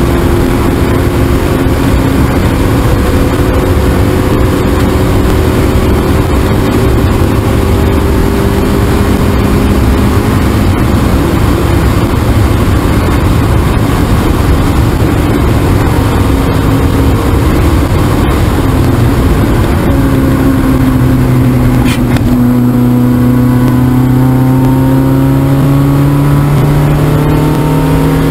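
A 1.6-litre Spec Miata's four-cylinder engine, heard from inside the car on track. Its pitch climbs slowly through a long pull, drops about two-thirds of the way through as the car slows, then climbs again as it accelerates. Heavy wind and road noise run throughout, with a short sharp click about three-quarters in.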